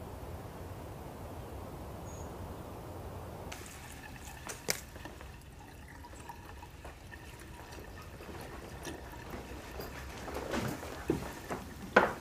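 Quiet room sounds of someone moving about and handling things: a sharp knock about halfway through, then a cluster of louder knocks and clicks near the end, the loudest just before it finishes, over a low steady background noise.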